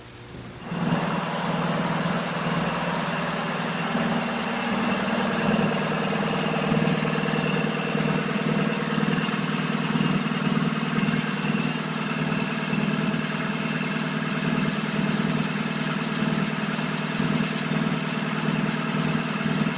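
Machinery running steadily, beginning abruptly about a second in, with a constant low hum under an even hiss.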